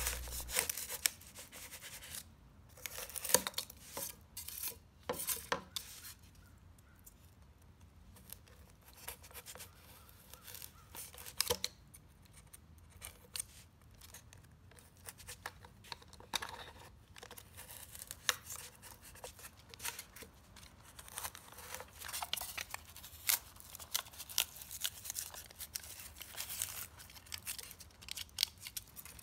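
X-Acto knife slicing through a styrofoam block: many short cutting strokes at irregular intervals.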